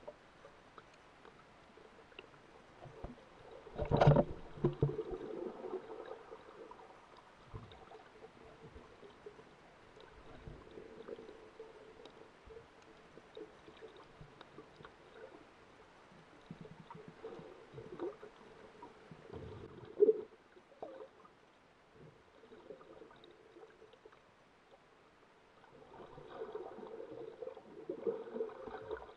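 Muffled underwater sound of a diver swimming down: water swishing and gurgling, with two sharp knocks, about four seconds in and again about twenty seconds in.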